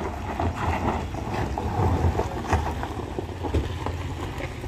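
A vehicle engine rumbling low and steady, with wind buffeting the microphone and a few short knocks or clatters.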